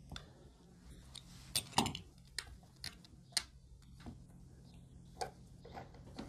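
Small plastic screen clamps clicking and tapping against a phone's frame as they are fitted and adjusted on its corners to hold a freshly glued screen: about six sharp, short clicks at uneven spacing, the loudest near two seconds in.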